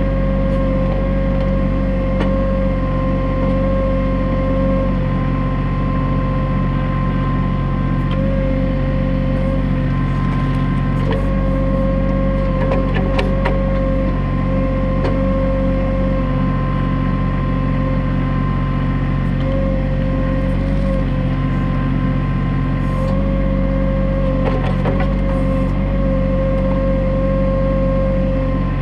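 New Holland TC33D compact tractor's diesel engine running steadily while working a Woods 7500 backhoe, with a steady high whine over the engine that wavers now and then. Scattered clicks and knocks come through, in clusters a little before halfway and again near the end.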